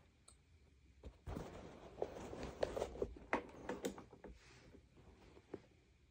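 Hands handling the parts and power cord of a Sanitaire upright vacuum cleaner: about three seconds of rustling with several sharp clicks and knocks, then one more click near the end.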